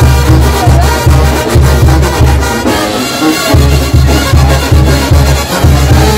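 Mexican brass band (banda de viento) playing live and loud, with a driving pulse of deep bass notes under the brass melody; the bass drops out briefly about halfway through, then comes back.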